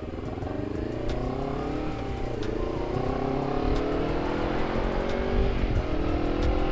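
Honda CBR250RR parallel-twin running through a KEA Speed aftermarket exhaust, revving up under acceleration, its pitch climbing, dropping briefly at a gear change about two seconds in, then climbing again with another brief dip near the end.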